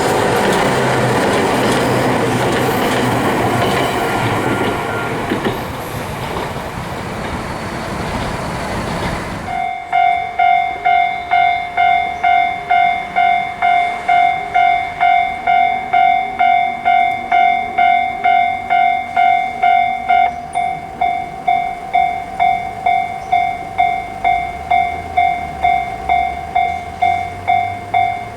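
An electric train of the Toyohashi Railway Atsumi Line running past close by, a loud steady rush of wheel and running noise. About nine and a half seconds in it cuts off abruptly and a Japanese level-crossing warning bell starts ringing, a clear 'kan-kan' chime about two strikes a second, with a low rumble coming in near the end.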